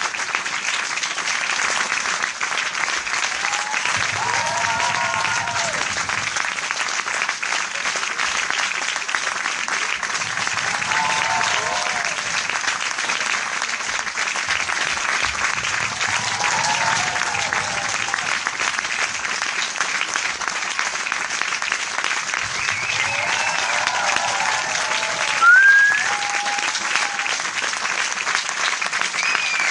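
Crowd applause, dense and steady, with voices calling out every six seconds or so and a short rising whistle about 25 seconds in, the loudest moment.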